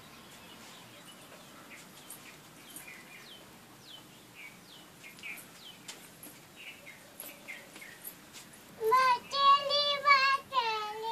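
Faint short, falling bird chirps in the background, then about nine seconds in a toddler girl starts singing loudly in long held notes that slide down near the end.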